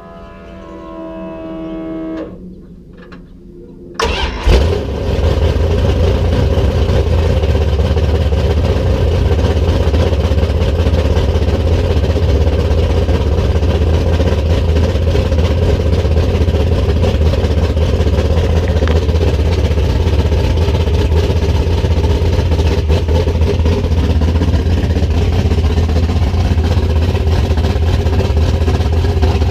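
Plymouth Duster's 340 V8 starting up: a brief whir, then the engine catches about four seconds in with a short rev and settles into steady running. This is the engine being run after its cylinder heads were resurfaced and reinstalled.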